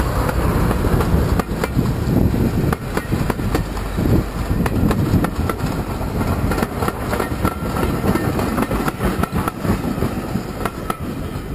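Class 35 Hymek diesel-hydraulic locomotive's engine running as it passes close by, followed by its train of coaches rolling past, the wheels clicking and clattering repeatedly over the rail joints.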